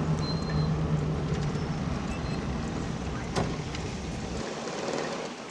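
An old taxi's engine and road noise heard from inside the cabin as it drives through traffic. A steady engine hum runs through the first second and a half, there is a single click about three and a half seconds in, and the low rumble drops away near the end.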